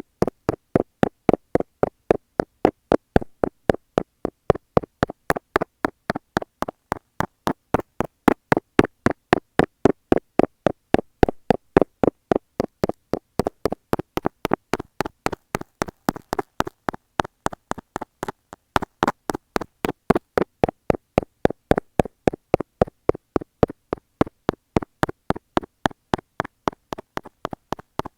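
A metal dental scaler tapping on an Apple earphone microphone fixed to a wall. The taps are rapid and fairly even, about three to four a second, and they run without a break.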